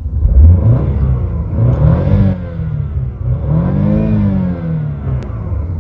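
BMW car engine revved in park: a short rise and fall in pitch around two seconds in, then a bigger rev to about 6,000 rpm that peaks about four seconds in and falls back toward idle.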